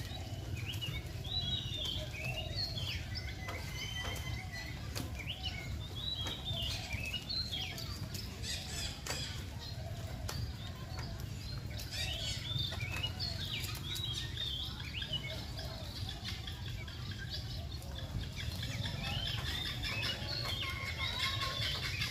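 Small birds chirping and twittering in many short, quick, sweeping notes, with a few faint clicks, over a steady low hum.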